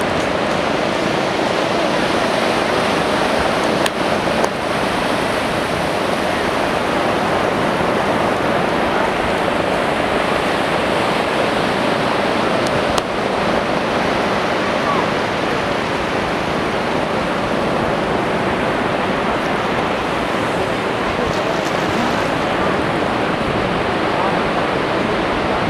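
Sea surf washing onto the beach as a steady rush of noise.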